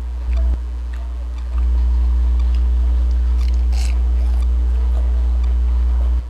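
A loud steady low hum runs throughout and jumps up in level about a second and a half in. Under it, faint sounds of someone eating with their hands: chewing, and a brief crunchy bite into fried lumpia near the middle.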